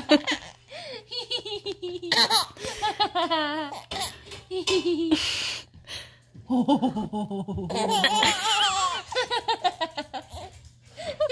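A baby laughing in several bouts, with a woman laughing along with her.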